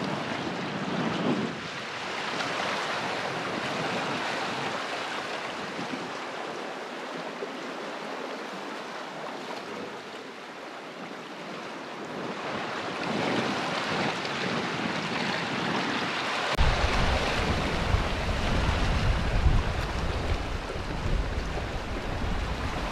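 Sea swell surging and draining around shore rocks, an even wash that rises and eases over several seconds. About two-thirds of the way in, gusty wind rumble on the microphone comes in and stays.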